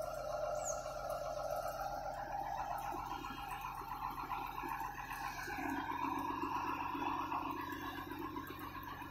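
Mobile crane's engine and hydraulic system running under load with a steady multi-tone whine over a low hum. The whine shifts in pitch about three seconds in and again about five and a half seconds in, as the load on the hydraulics changes.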